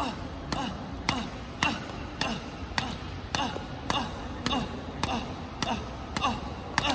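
Badminton racket hitting hand-fed shuttlecocks in quick succession, a sharp crack about twice a second, in a rapid wrist-flick drill.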